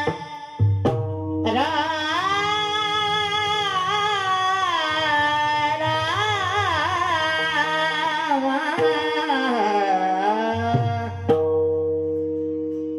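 Marathi Warkari devotional singing: a male voice holds one long, ornamented sung line over steady held instrument tones. A pakhavaj stroke sounds about a second in and another near the end.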